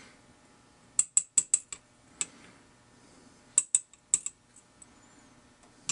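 Serrated key pins from an American Lock 1105 cylinder plug being tipped out onto an aluminium pin tray, each landing with a light metallic click. There are about a dozen sharp clicks in a few quick clusters.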